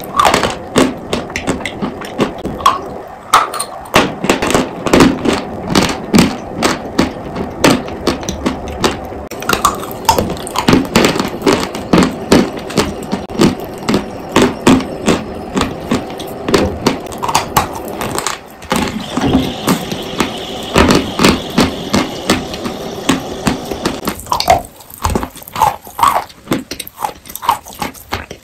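A sawn stick of eating chalk being bitten and chewed close to the microphone: sharp, dry crunches about two or three times a second.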